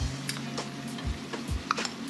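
A few light, sharp clicks of a steel spoon against a steel bowl and the clay pot as salt is spooned in, over soft background music.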